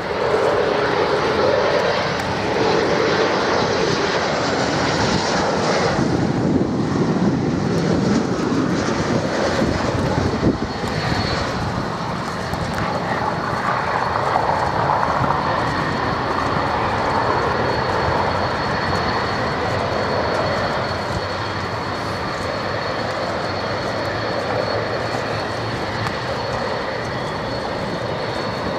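Embraer regional jet's twin turbofan engines on landing approach and rollout, a continuous jet engine noise with a steady high whine; a deeper rumble sets in about six seconds in.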